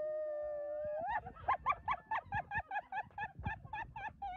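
A high-pitched voice holds one long cry that rises about a second in and breaks into fast, rhythmic laughter of about four or five peals a second.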